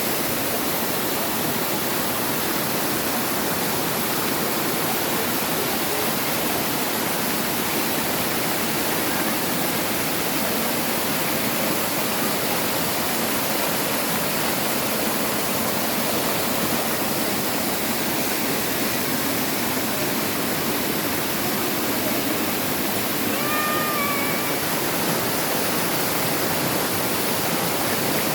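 Steady rush of falling water from a waterfall, an even hiss at constant level. A brief high call cuts through about three-quarters of the way in.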